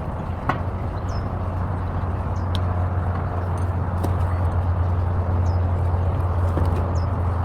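A bird repeating a short, high, falling chirp about once every second or so, over a steady low rumble. A single sharp click sounds about half a second in.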